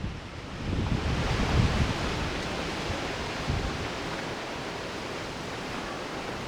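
Wind gusting and buffeting the microphone with low rumbles for the first few seconds, then settling into a steady rushing hiss.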